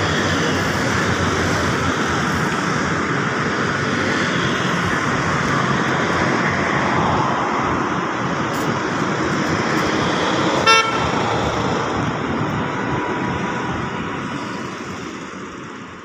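Steady rush of street traffic noise, with one short vehicle horn toot about eleven seconds in.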